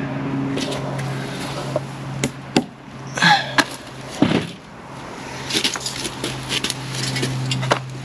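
A steady low machine hum, dipping briefly about halfway through, with a falling swish about three seconds in and a run of sharp clicks and knocks in the second half.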